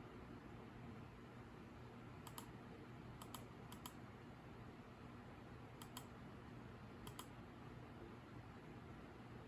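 Near silence over a faint low steady hum, with five faint double clicks spaced irregularly through it.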